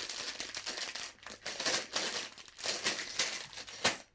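Plastic Lego parts bags crinkling and rustling as they are handled and pulled from a cardboard box, in irregular bursts, with a sharp click near the end.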